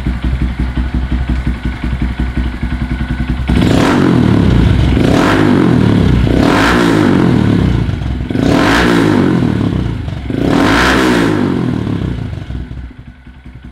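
2022 Honda Grom's 125 cc single-cylinder engine breathing through a Yoshimura RS-9T full exhaust, with a throaty, deep note. It idles steadily, then is revved hard about three and a half seconds in, swelling and easing four times at high revs before dropping back near the end.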